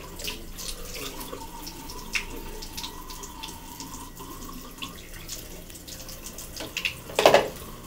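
Water running from a bathroom sink tap, with small splashes and drips into the basin, and one brief louder noise near the end.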